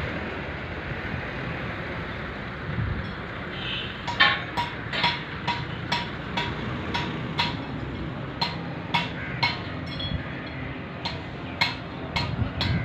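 A hammer striking steel over and over with a bright metallic ring, about two blows a second. The blows start about four seconds in, pause briefly near the ten-second mark, then resume, over a steady hum of yard noise.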